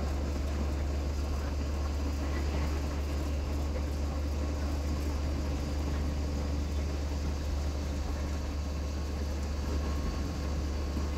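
Steady low drone of a bus's engine and road noise heard from inside the cabin near the driver as the bus drives along the highway.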